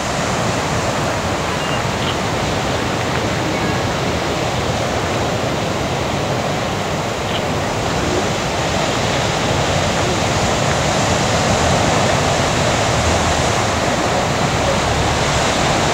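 Ocean surf breaking and washing ashore: a continuous, even rush of noise that swells a little louder in the second half.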